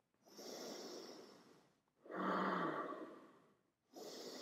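A person breathing deeply and audibly while holding a yoga pose: three long breaths in a row, each lasting about a second and a half.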